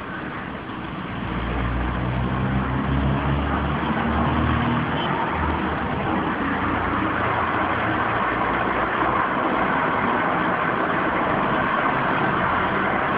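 Homemade copper-coil alcohol jet stove burning. It starts with a low fluttering rumble of flame for the first few seconds, then settles into a steady hiss as the burner warms up and comes into jet operation.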